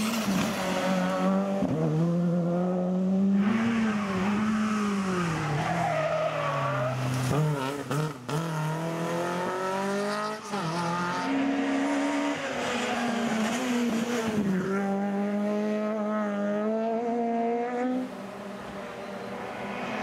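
Rally car engines at full throttle, the revs climbing and dropping again and again through gear changes and braking as several cars pass in turn, starting with a Škoda Fabia R5 and including a classic rear-engined Škoda rally coupé about halfway. The sound breaks off and starts afresh several times, and near the end a quieter car is heard approaching.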